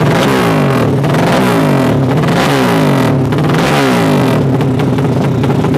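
Drag-racing motorcycle engine revved by hand while standing, in repeated throttle blips about one a second, the pitch falling back after each blip.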